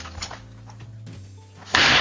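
A car window smashed with a crowbar near the end: a sudden loud crash of shattering glass that fades over about half a second, over low background music.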